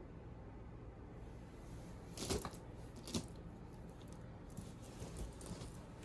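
Faint rustling with two sharper clicks a little over two and three seconds in, then a few smaller ticks, over a low steady hum.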